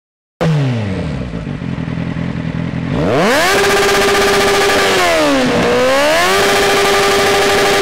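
A sport motorcycle with a loud exhaust, standing still, heard from right beside it. It idles at first, then about three seconds in it is revved hard and held at high revs, dropping back briefly around the middle before being revved up and held again. It is howling at over 125 decibels, well above the legal limit.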